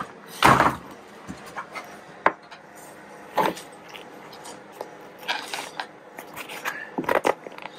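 Irregular handling noises from a car seat back being worked with a screwdriver: a knock as the seat is handled about half a second in, then a sharp click and scattered scrapes and rubs of the screwdriver and gloves against the plastic trim clips and the vinyl seat cover.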